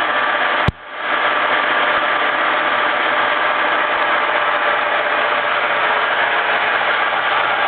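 Tos Trencin SN 40 B engine lathe running with a steady mechanical hum, driven by its 7.5 HP main motor through the headstock gearing, with a few faint steady tones in it. A sharp click comes just under a second in, with a brief drop in level before the running noise returns.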